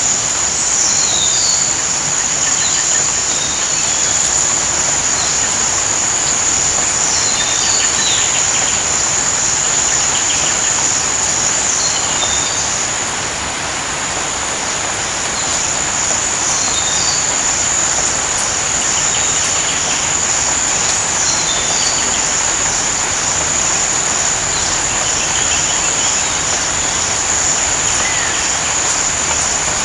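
Steady rain hiss with a continuous high-pitched insect trill, like crickets, running over it. Short chirps come and go throughout.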